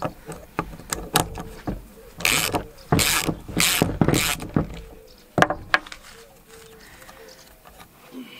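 A ratchet wrench with a socket working the hub bolt of a car air-conditioning compressor's clutch: scattered metal clicks, and four short ratcheting rasps about half a second apart in the middle.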